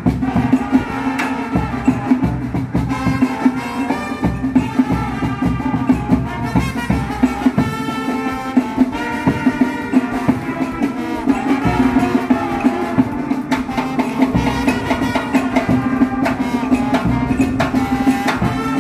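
Live brass-and-drum band music with trombone, horn melody over a steady drum beat.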